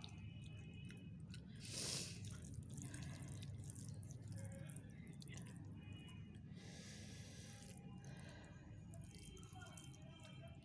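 Faint wet squishing and clicking of saucy rice with peas and chicken gravy being mixed by hand on a steel plate while eating. A few short louder scrapes stand out, about two seconds in and again past the middle.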